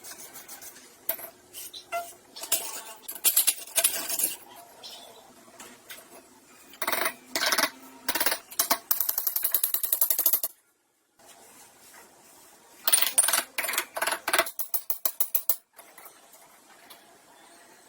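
Metal tools and parts being handled: sharp clinks and scrapes, with two runs of fast, even clicking, one around the middle and one a few seconds later. The sound cuts out for about half a second just after the first run.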